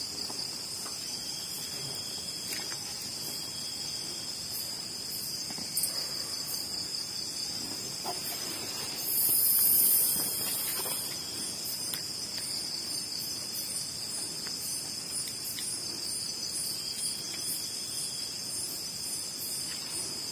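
Crickets and other night insects trilling steadily in one constant high note, with faint regular ticks above it. About halfway through, a louder, much higher hiss or buzz lasts for a second or so.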